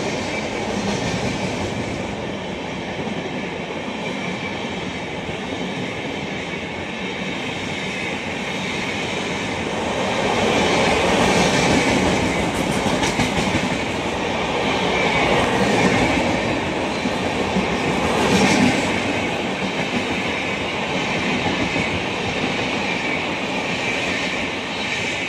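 Express train's passenger coaches running past at speed: a steady rumble of wheels on rails with clickety-clack over the rail joints. It grows louder about ten seconds in and begins to fade at the very end.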